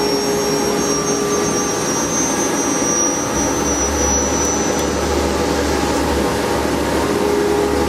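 A CNC router running a long V-carve job: a loud, even rushing machine noise with a steady high whine, and a low hum that comes in about three seconds in.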